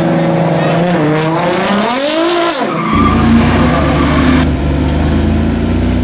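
A performance car's engine revving up and down, with a wavering squeal, for about three seconds. Then, after an abrupt change, a car engine runs at a deep, steady idle.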